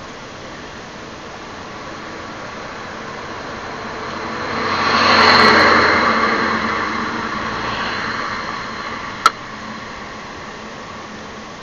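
A vehicle passing by: its noise swells to a peak about five seconds in and fades over the next few seconds, over a steady background hiss. A single sharp click a little after nine seconds.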